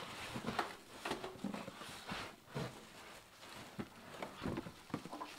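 Plastic wrapping crinkling and a cardboard shipping box rustling and bumping as hands work inside the carton, in irregular scrapes and light knocks.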